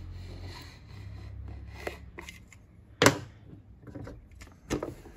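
Utility knife blade scraping and slicing through the seal label on a hard plastic tool case, then a loud sharp click about three seconds in, with a few lighter clicks and knocks.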